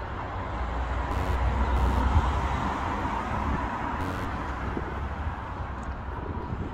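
City street ambience: traffic noise with wind on the microphone, swelling a little about two seconds in.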